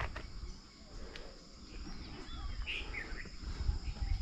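Outdoor ambience: a steady high insect drone with a few short bird chirps and a whistle near the middle, over a low rumble that grows near the end.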